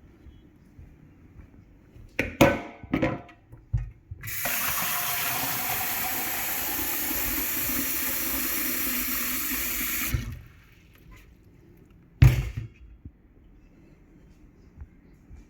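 Water running in a steady stream for about six seconds, like a tap, with a few knocks just before it and a single thump a couple of seconds after it stops.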